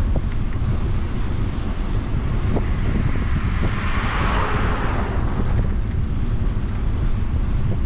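Wind buffeting the microphone on a moving bicycle, a constant low rumble. A passing vehicle's rush swells and fades about halfway through.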